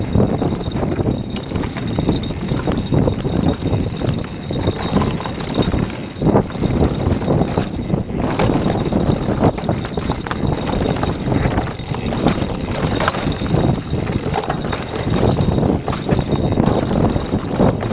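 Downhill mountain bike rattling and knocking continuously as it rolls fast over a rough dirt trail, tyres on dirt with frequent short knocks from the bike over bumps.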